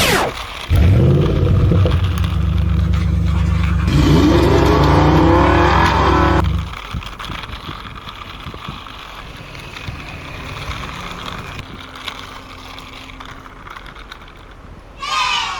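Engine sound of a toy vehicle starting and running with a steady low hum, then revving up with rising pitch before cutting off abruptly about six and a half seconds in; quieter rattling follows, and a short wavering whistle-like glide comes near the end.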